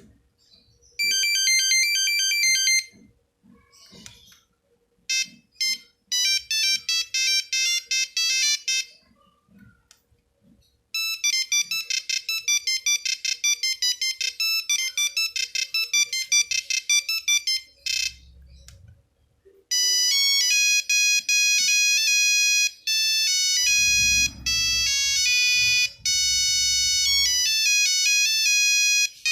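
Nokia 3310 ringtones playing one after another: beeping tunes of one note at a time, several short ones with brief pauses between, then from about twenty seconds in a longer tune with held notes. A low rumble sits beneath part of the last tune.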